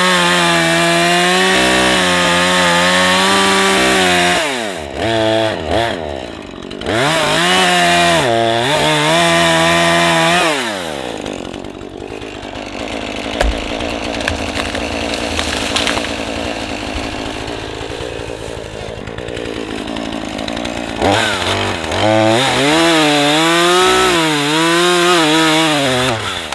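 Two-stroke chainsaw at high revs, its pitch falling and rising with repeated throttle blips, then dropping into a lower, rougher running for about ten seconds as it cuts into the wood. It then revs high again and cuts off at the very end.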